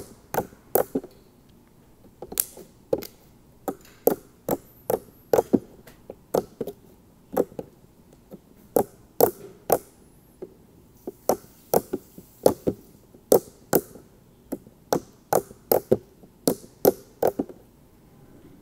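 Clicky slime with a bubbly texture being squeezed and worked by hand, giving sharp clicks and pops as trapped air bursts, about two a second in an uneven rhythm. The clicking stops shortly before the end.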